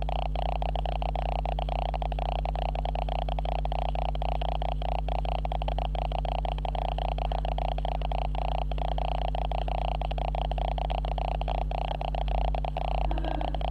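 Steady electronic buzz with a rapid crackle from a faulty camera's audio, a hum of several fixed tones. A brief low rumble near the end.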